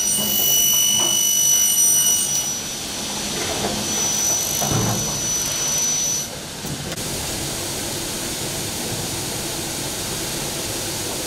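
Saw motors of a double-head uPVC profile cutting machine running with a high steady whine, which stops abruptly about six seconds in, leaving a steady hiss.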